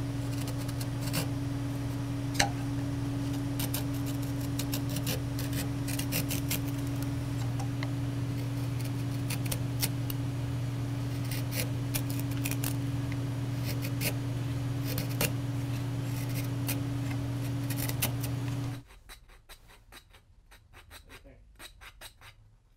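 Hand gouge paring shavings from a walnut spoon handle: a run of short scraping cuts and ticks over a steady low hum. About nineteen seconds in the hum stops, and a rasp files the spoon in quieter, even strokes.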